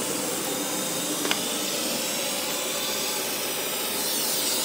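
Electric arc welding on a steel bracket: the arc gives a steady, even hiss, with one faint tick about a second in.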